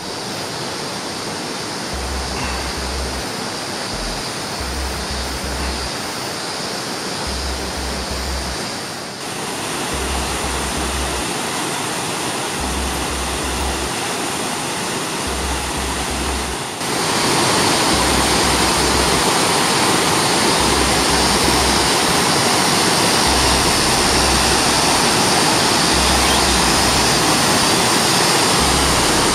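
Rushing water of a mountain river running over rocky rapids: a steady rush that gets louder about seventeen seconds in. A low pulse repeats every couple of seconds underneath.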